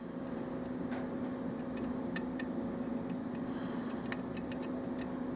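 Lock pick working the pin stack of a Russwin lock cylinder during single-pin picking, giving faint, irregular light clicks as the pins are lifted; pins 1 and 5 keep dropping back down rather than staying set. A steady low hum runs underneath.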